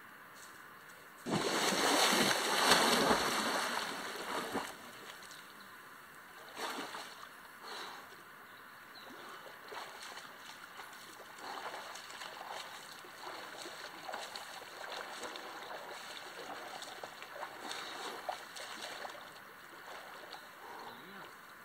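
A person plunges into a river with a loud splash and churning water about a second in, then swims, with softer splashing and sloshing of strokes to the end.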